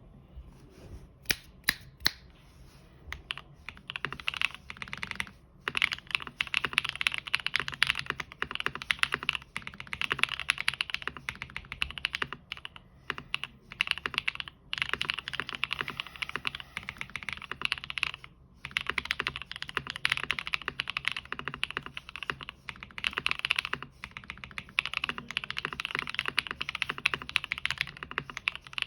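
Typing on a gasket-mount mechanical keyboard with lubed and filmed Tecsee Techno Violet switches, a POM plate and PBT keycaps: a few separate key presses, then fast typing in bursts with short breaks.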